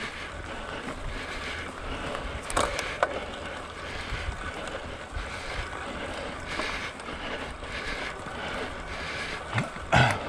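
Bicycle being ridden: steady tyre and rattling drivetrain noise, with a sharp knock about two and a half seconds in and another near the end.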